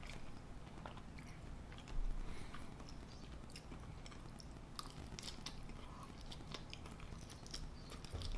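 Close-miked eating: a person chewing and biting into chili cheese fries, with wet mouth clicks and smacks scattered irregularly throughout and a low thump about two seconds in.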